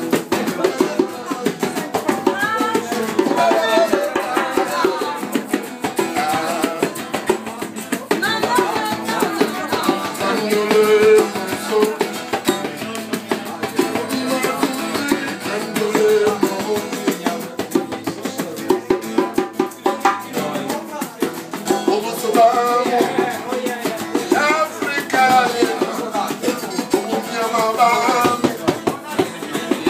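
Live jam music: a singing voice over guitar and a drum beat.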